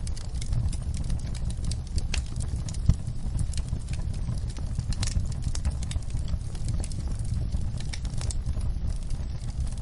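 Wood fire crackling, with irregular sharp pops over a steady low rumble, and rain falling on a window. One pop about three seconds in is louder than the rest.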